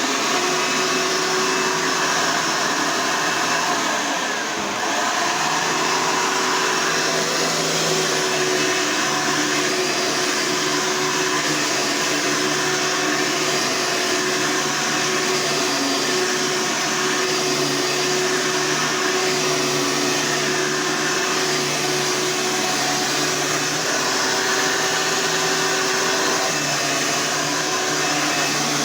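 Green Hoover Legacy vacuum cleaner switched on and running steadily, its motor giving a dense rushing whine over a steady hum.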